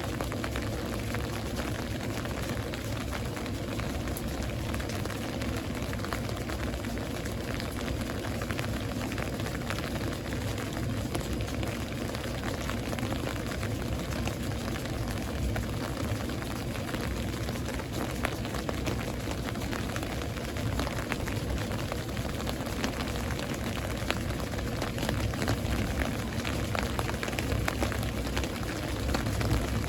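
Steady rain from a thunderstorm, with dense patter of drops ticking on surfaces, getting a little heavier near the end.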